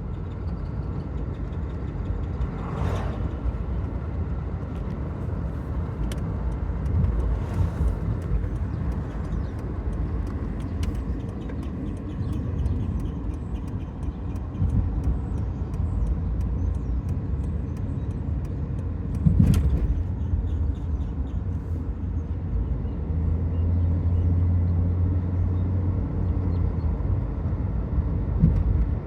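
2008 Dodge Nitro rolling with the brakes applied, a repeated squeaking chirp from the driver-side front wheel over the steady road rumble; the cause is unknown, suspected to be the brakes or a wheel bearing.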